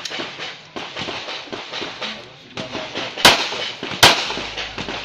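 Two loud pistol shots from a Glock about three-quarters of a second apart, near the end, after a run of fainter sharp reports and clicks.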